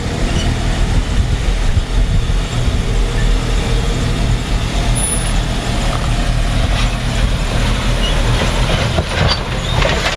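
Jeep Wrangler Rubicon's engine running at low crawling speed as it creeps over and down a steep slickrock ledge, a steady low rumble, with a few faint knocks near the end.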